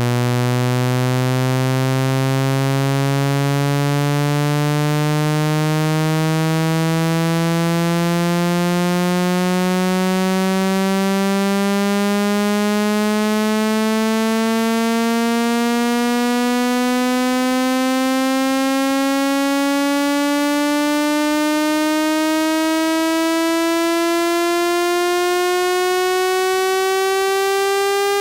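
Synthetic speaker water-eject tone: a buzzy electronic tone rich in overtones, sweeping slowly and steadily upward in pitch at constant loudness, meant to vibrate a phone speaker's diaphragm and push trapped water out through the grille.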